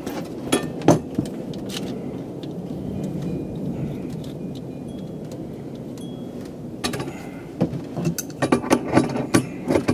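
Steel hand tools clinking on a threaded rod and nut as pliers and a wrench are set on them and turned to tighten the nut. There are a few sharp clicks about a second in and a quick run of clinks near the end, over a steady low rumble in the background.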